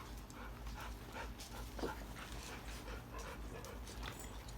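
Golden retriever puppies and dogs making faint, short dog sounds, with scattered soft clicks and rustles.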